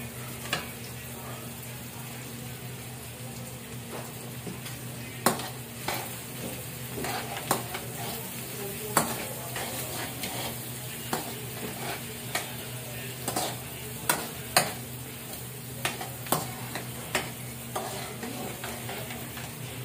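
Chopped onion and garlic sizzling in hot oil in a metal wok, stirred with a metal spoon. From about five seconds in, the spoon knocks and scrapes against the wok in sharp, irregular clinks, which are the loudest sounds.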